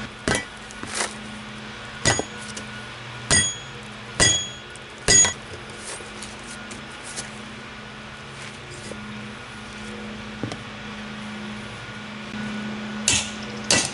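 Repeated hammer blows on metal, each a sharp strike with a short ringing clink: six blows in the first five seconds, a pause, then more near the end, while working a tire bead loose from a lawn tractor's steel rim.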